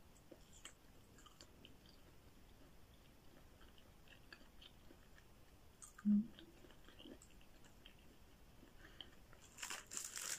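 Faint mouth sounds of a person chewing a bite of buko pie, with scattered soft clicks and smacks. A brief low hum about six seconds in is the loudest moment, and plastic wrapping crinkles near the end.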